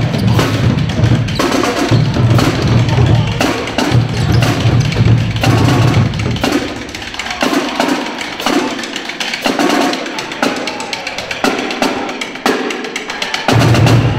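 Music with a heavy bass beat and drums. The bass drops out about six seconds in, leaving lighter percussion, and comes back near the end.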